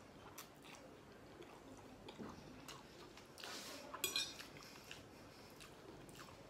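Metal fork clinking and scraping on a plate as spaghetti is twirled: scattered light clinks, with a short rattling scrape about four seconds in that is the loudest sound.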